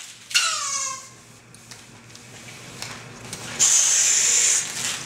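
Latex twisting balloon handled and stretched: a short falling squeak about half a second in, then a loud hiss of air at the balloon's nozzle for about a second near the end.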